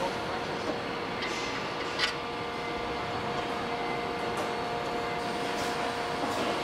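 Steady assembly-shop machinery noise with a faint constant hum and a few sharp metallic clicks, the loudest about two seconds in.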